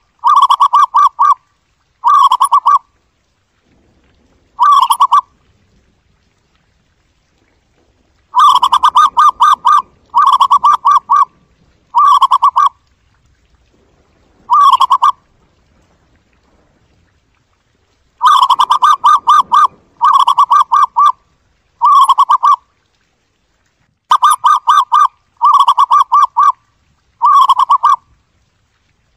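Zebra dove calling: repeated bursts of rapid, staccato cooing notes, each burst lasting about a second. The bursts come in clusters, with two longer pauses of a few seconds.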